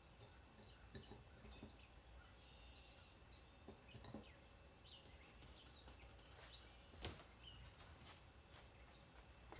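Near silence: faint background noise with scattered short bird chirps and a few soft clicks.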